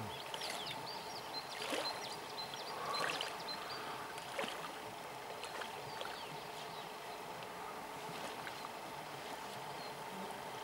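River water sloshing and splashing around legs in chest waders as a person wades through a shallow current, over the river's steady flow. A few faint high chirps come in the first few seconds.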